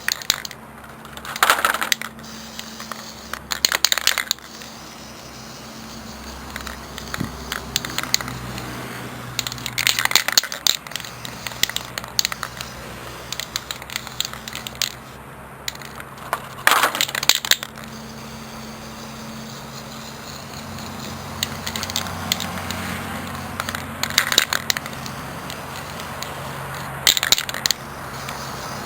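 Aerosol spray paint can sprayed in about six short bursts, each under a second long and spread out, over a steady low hum.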